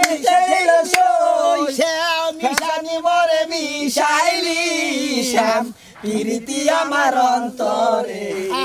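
Men's voices singing a chant-like tune together, long held notes that bend in pitch with brief breaks between phrases.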